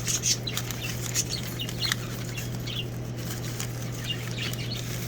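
Scattered short high chirps and clicks, with rustling of a shipping box being handled, over a steady low hum.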